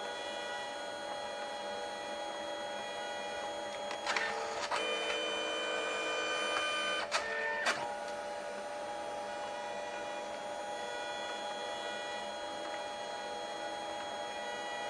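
Canon Selphy CP1300 dye-sublimation photo printer at work: a steady motor whine made of several tones, broken by clicks and changes in pitch about four seconds in and again around seven seconds, as the paper is shuttled back and forth between colour passes.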